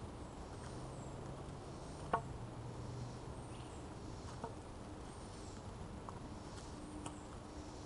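Quiet summer woodland ambience: faint high chirps repeat every second or so over a steady low hum. A few light taps come at intervals, the clearest about two seconds in.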